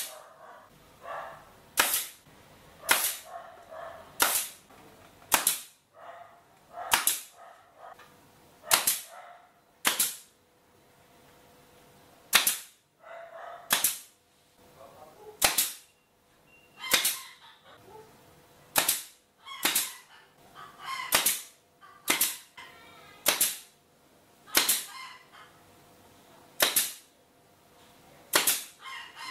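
Pneumatic nail gun firing nails into wooden shelf slats, one sharp crack at a time, about once a second at an uneven pace.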